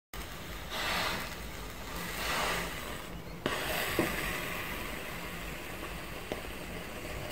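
Iron gliding over a folded cotton strip on an ironing board, with rustling as the fabric is handled and a few light clicks.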